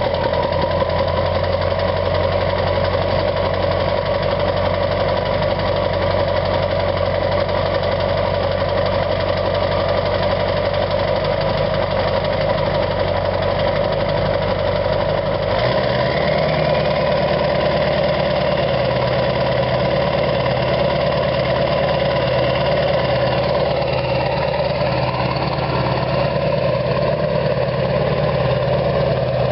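A 7.3-litre Powerstroke V8 turbodiesel with a 4-inch straight-pipe exhaust idles steadily just after a start-up, its turbo fitted with a new Wicked Wheel compressor wheel. About halfway through, the low engine note steps to a different pitch and then holds steady again.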